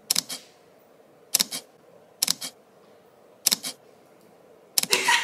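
Camera shutter clicking, a sharp double click five times at roughly one-second intervals, like photos being snapped.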